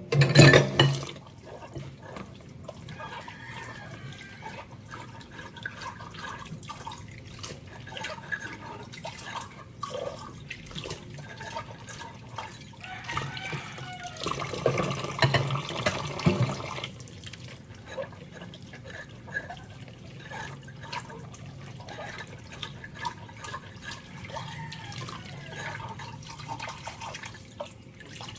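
Tap water running into a kitchen sink, with frequent clinks and knocks of things being handled and washed in it, and a louder spell of splashing and clatter about halfway through.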